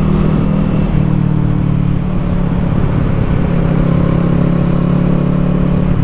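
Kawasaki Eliminator 450's parallel-twin engine running steadily at highway cruising speed, with wind and road noise, heard from the rider's seat.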